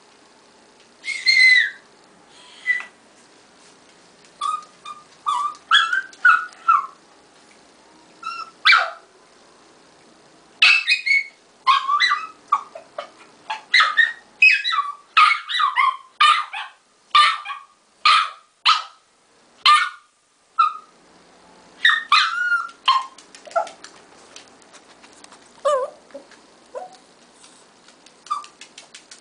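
A dog whining and yipping over and over, in short high-pitched cries: a few at first, then a fast run through the middle, then a few more. It is a dog demanding to be let through a closed door.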